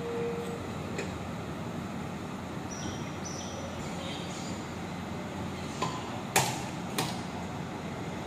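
Hino RM1ESKU coach rolling slowly and pulling up, with a steady low engine and road noise. A few short high chirps come in the middle. Three sharp clicks or knocks come near the end, the second one loudest.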